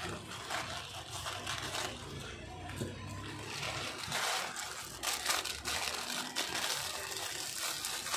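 A plastic postal mailer bag and the clear plastic bag inside it being handled, crinkling and rustling irregularly as the item is pulled out.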